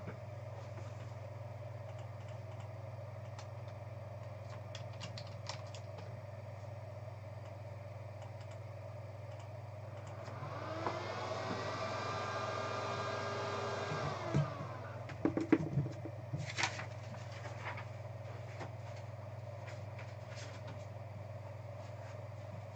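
A small electric motor whirs for about four seconds, rising in pitch as it starts and falling as it stops. It is followed by a few sharp knocks and clatter as boxes are handled, over a steady room hum.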